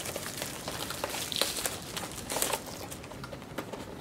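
Plastic shrink-wrap crinkling and cardboard rustling as 2018 Topps Tier One baseball card boxes are unwrapped and handled, with scattered small clicks and taps, busiest about two and a half seconds in.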